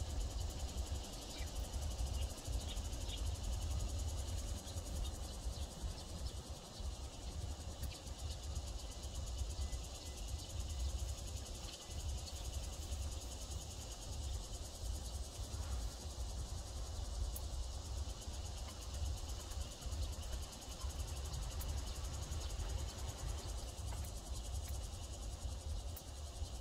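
Steady chorus of insects chirring in a garden, over a continuous low rumble.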